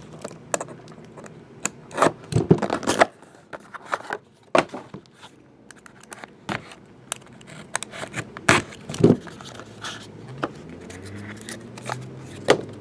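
Trading-card box being opened by hand: packaging cut and torn, with cardboard and plastic scraping, rustling and scattered sharp clicks.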